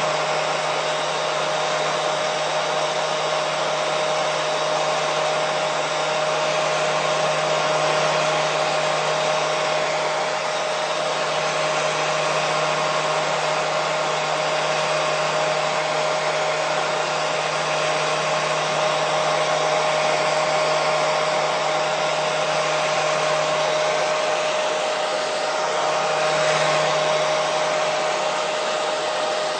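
Hair dryer running steadily: a constant blowing rush with a steady motor hum, played as white noise to soothe a colicky baby to sleep.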